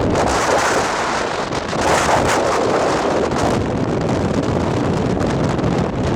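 Strong mountain wind blowing over the microphone: a loud, steady rush that swells in gusts, strongest about two seconds in.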